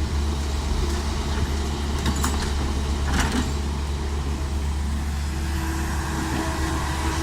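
Heavy diesel engine running steadily at a constant low hum, with a few short knocks about two and three seconds in.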